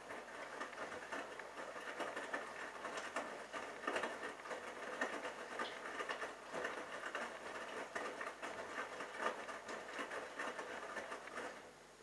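Bosch Logixx WAS32461GB washing machine drum turning during a rinse, tumbling the laundry through the rinse water in a dense run of small knocks. It stops just before the end.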